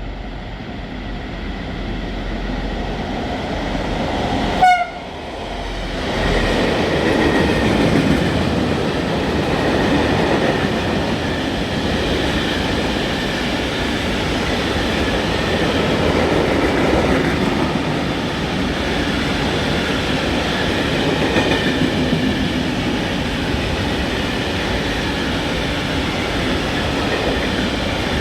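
A class 220 diesel locomotive approaches, getting louder, and sounds one short horn blast about five seconds in as a greeting. Then its freight train of silo wagons rolls past loudly and steadily, with wheels clattering.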